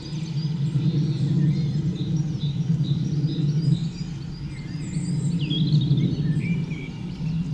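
A steady low rumble from BR Standard Class 4 2-6-0 steam locomotive 76079 and its coaches approaching, with birds chirping and singing over it.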